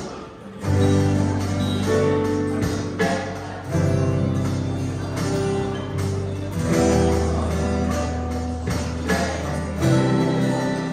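Small live band playing an instrumental passage: strummed acoustic guitars over a line of low electric bass notes, with keyboard chords.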